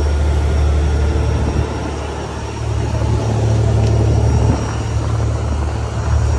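Sportfishing boat's diesel engines droning steadily underway, a strong low hum under a rushing wash of wind and water noise.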